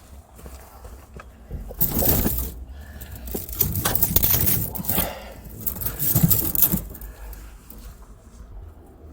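Handling noise: three bursts of clattering and clinking, a couple of seconds apart, as hard objects are moved about.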